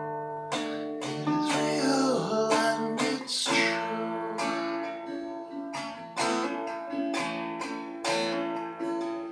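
Acoustic guitar strummed in a steady rhythm, about two strums a second, the chords ringing on between strokes.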